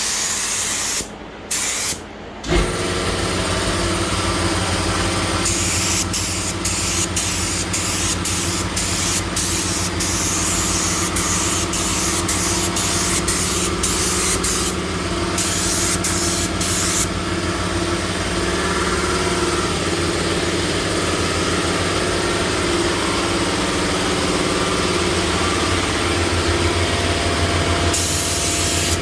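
Air spray gun spraying 2K high build primer in repeated trigger bursts of hissing air, many short ones in a row and some longer passes. Under it a motor hum starts suddenly a couple of seconds in and runs steadily, typical of the air compressor feeding the gun.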